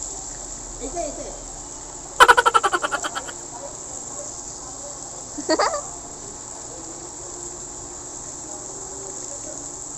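Steady high buzz of insects. About two seconds in comes a loud, rapid rattling call of about a dozen quick pulses lasting about a second, and a short sweeping call follows midway.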